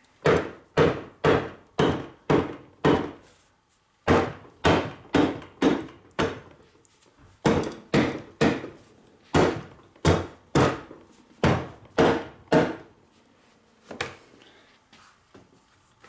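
Mallet knocking on the cast aluminium extension housing of a Ford M5OD-R1 five-speed manual transmission to work it loose from the main case: dull knocks about two a second, in runs of three to six with short pauses, then a couple of lighter taps near the end.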